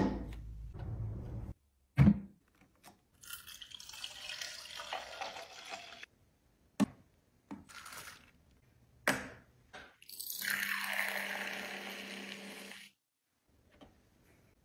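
Pink mouthwash poured into a clear plastic dispenser reservoir: a splashing pour in several stretches, the longest and loudest near the end. Sharp plastic clicks and knocks come between the pours as the dispenser's parts are handled.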